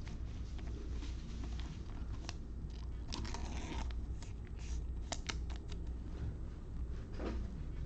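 Trading cards and their packaging being handled: scattered light clicks and snaps, with a short rustling patch about three seconds in.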